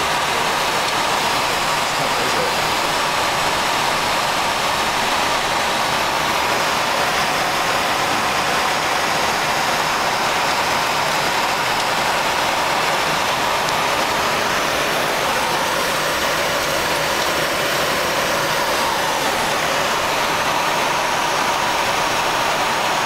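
Steady rushing cockpit noise of a Boeing 737-300 flight deck in cruise at altitude: airflow and air-conditioning hiss at an even level, with a faint steady tone running through it.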